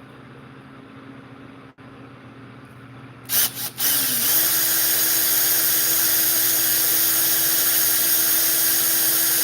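A small handheld power tool blips on twice briefly about three seconds in, then spins up and runs at a steady high speed.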